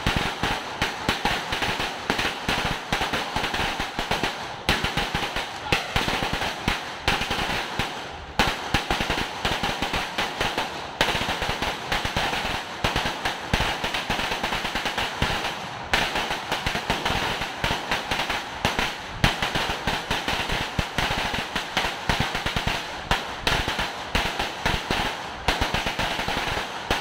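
A 1,000-shot firecracker belt (sawa) going off in a long, rapid string of sharp bangs, machine-gun fast, with a few momentary lulls.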